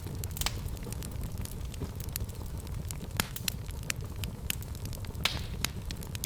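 Fireplace fire crackling: frequent irregular sharp pops over a steady low rumble, with one brighter, slightly longer hissing pop about five seconds in.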